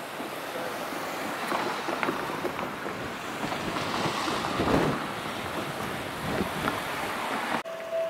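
A van driving over a railway level crossing, its tyre and engine noise swelling to a peak about halfway through over steady street noise. The sound cuts off suddenly near the end.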